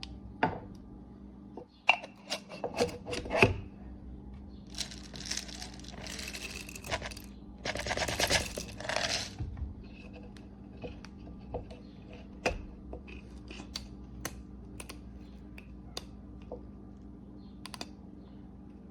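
Clicks and knocks of small objects being handled, with two rustling bursts of about two seconds each, about five and eight seconds in, over a steady low hum.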